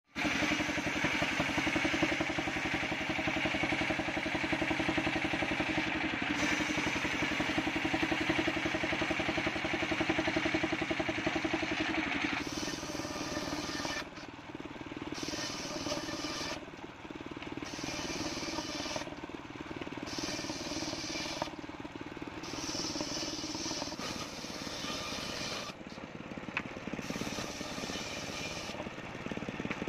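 Homemade circular table saw ripping waru wood planks into battens: the spinning blade cuts through the wood over its steadily running drive motor. A little under halfway through the cutting noise changes, rising and dropping every second or two.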